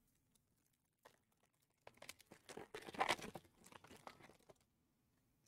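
A foil trading-card pack is torn open and crinkled, and the cards are slid out, in a quick run of faint rustles and crackles about two seconds in.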